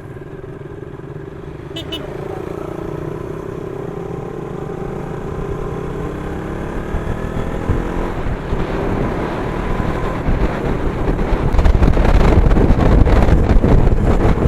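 Motorcycle engine accelerating, its pitch rising steadily, with wind buffeting the action camera's built-in microphone and growing louder until it is the loudest sound in the last few seconds.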